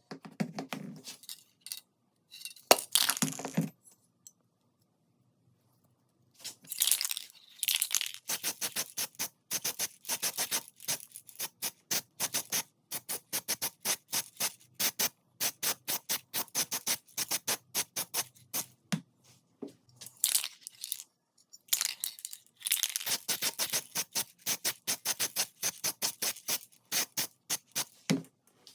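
Rapid, even back-and-forth scraping strokes by hand, about three to four a second, in long runs broken by short pauses, as rust and grime are worked off the pistol's parts.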